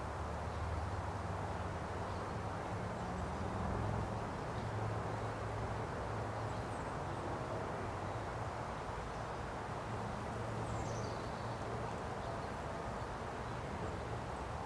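Outdoor ambience: a steady low rumble and hiss, with a few faint bird chirps, one about seven seconds in and a falling one about eleven seconds in.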